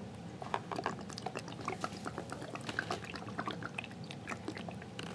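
Cat water bubbler running, its water trickling and dripping in many small, irregular splashes.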